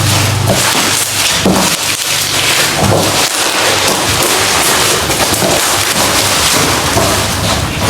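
Plastic packaging crackling and rustling as a parcel is opened and unwrapped by hand.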